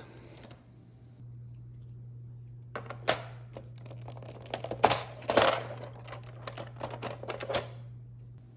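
LEGO bricks being pulled apart and set down on a LEGO baseplate: a run of sharp plastic clicks and clatters that starts a few seconds in and stops near the end, over a low steady hum.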